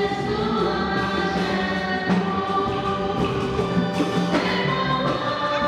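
A choir singing a hymn in long, held notes.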